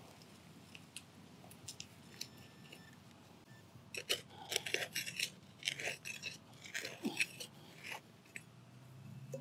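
Hand digging tool cutting and scraping into dry, root-bound soil and dry leaves: a few scattered ticks at first, then about four seconds of dense crunching and scraping from about four seconds in.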